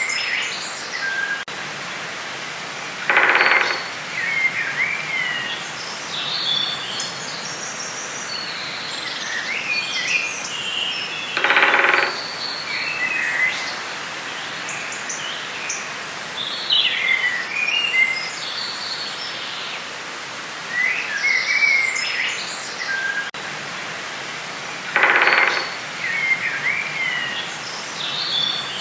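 Forest ambience: several birds chirping and singing over a steady background hiss. A louder, lower, buzzy call comes three times, about 8 to 13 seconds apart.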